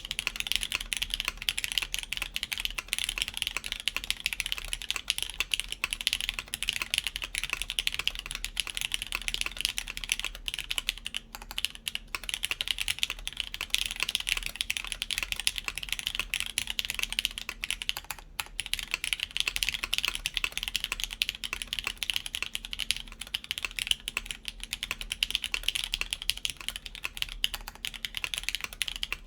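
Continuous fast typing on a gasket-mounted DN Ogre mechanical keyboard with lubed Cherry MX Black linear switches, a UHMWPE plate and GMK keycaps. Keystrokes run steadily, with brief pauses about eleven and eighteen seconds in.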